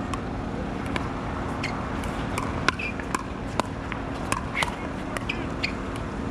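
Pickleball paddles striking a hard plastic ball in a fast doubles rally: an irregular string of sharp pops, roughly two a second, the loudest a little before the middle, over a steady low hum.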